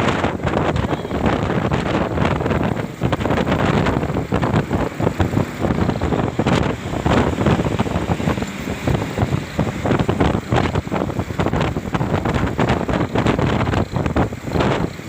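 Loud, gusty wind buffeting the microphone, with a constant low rumble underneath.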